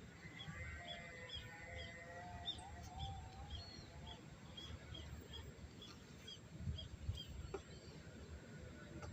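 Faint birdsong: one bird repeats short, high chirps about twice a second, while another sings a lower, wavering warble during the first few seconds.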